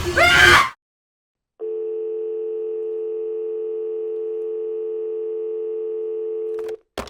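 A brief loud sound with rising pitch cuts off abruptly. After a second of silence, a telephone dial tone plays steadily for about five seconds, then stops with a short click.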